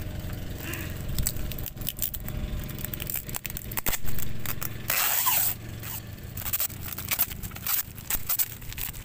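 Plastic packaging crinkling and crackling as a fishing reel is unwrapped by hand, in many short irregular crackles with a louder rustling burst about five seconds in.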